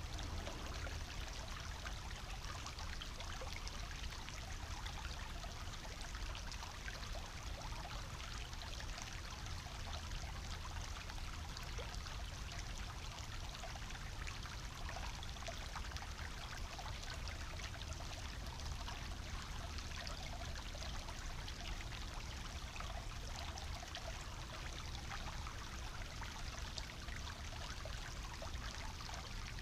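Small, shallow brook bubbling and trickling over stones: a steady babble of water, full of tiny splashes and ticks, over a steady low rumble.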